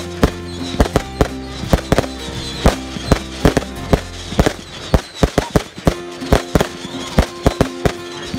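Aerial fireworks going off in quick, irregular bangs, often several a second, as shells fire and burst overhead.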